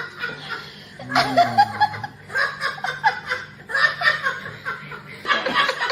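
People laughing hard in repeated bursts, about one burst a second.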